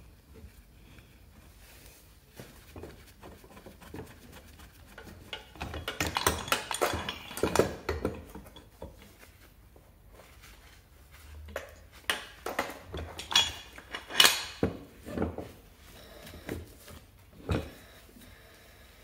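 Metal parts and tools clinking and clattering as a Peugeot Vivacity 3 scooter engine's crankcase and crankshaft are handled on the bench: a burst of clatter about six seconds in, another about twelve seconds in, and single clicks between.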